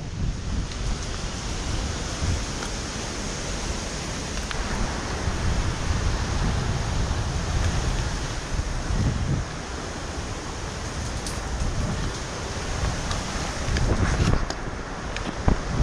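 Steady rushing wind noise on a camera microphone, with a rumbling low end and a few sharp clicks near the end.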